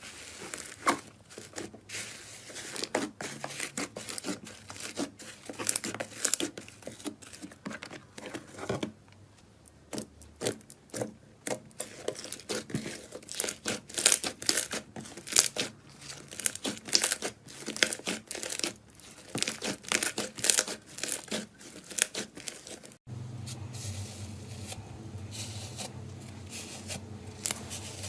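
Slime being stretched and squeezed by hand, giving a run of irregular sticky crackles and tearing sounds. Near the end a low steady hum comes in under it.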